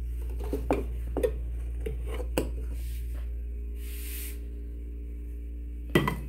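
Aluminium tube cake pan handled through a cloth and lifted out of the air fryer: several sharp metal clinks and clatters in the first couple of seconds, a brief hiss midway, then a loud knock near the end as the pan is set down on a stone countertop. A steady low hum runs underneath.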